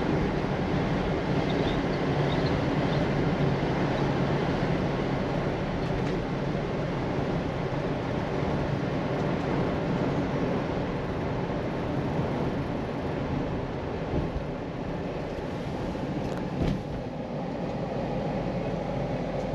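A 1966 Ford Mustang's two-barrel V8 running under way with its automatic transmission, a steady mix of engine and road noise that slowly eases off. It runs smoothly with no unusual noises. A couple of brief knocks come near the end.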